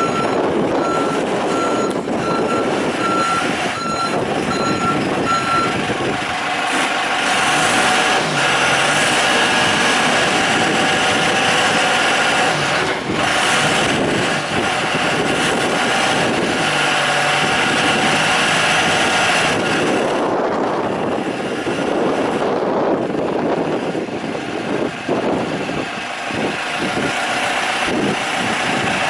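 Hyster H4.0FT diesel forklift: its reversing alarm beeps repeatedly for the first six seconds as it backs up. After that the diesel engine runs harder under a steady hydraulic whine while the mast lifts and tilts the forks, and it eases off after about twenty seconds.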